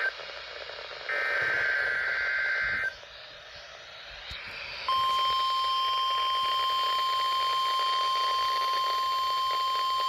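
Midland NOAA Weather Radio receiver sounding the Required Weekly Test. About a second in, a roughly two-second burst of the SAME digital header plays as a harsh two-tone warble. From about five seconds in comes the steady 1050 Hz warning alarm tone, one unbroken pitch.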